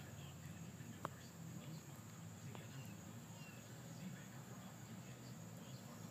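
Faint garden ambience: a steady high insect trill, such as crickets, over a low hum, with one sharp click about a second in.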